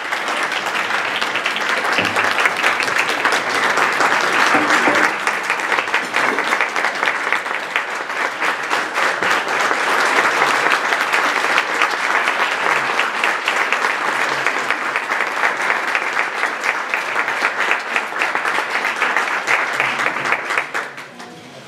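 Audience applauding, many hands clapping at once in a loud, steady ovation that dies away near the end.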